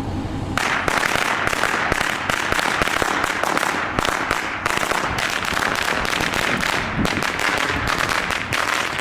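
Firecrackers going off in a fast, continuous crackle of pops, starting about half a second in and keeping up without a break.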